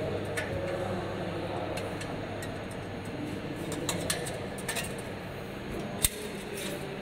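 Light metallic clicks and taps from hands handling a cable connector and the stainless-steel parts of a bottle-collecting turntable, with one sharp knock about six seconds in, over a steady low hum.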